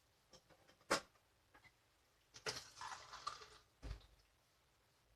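Faint handling sounds while fenugreek seeds are rinsed in a sieve: a sharp click about a second in, a short rustle of the seeds just past the middle, and a soft low knock soon after.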